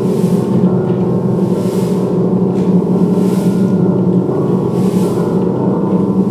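Loud, steady droning music of dense, sustained ringing tones, with a soft hiss that swells and fades about every second and a half.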